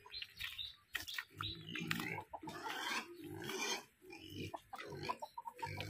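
Duroc and Large White cross pigs grunting, in a run of short, rough calls with brief gaps between them.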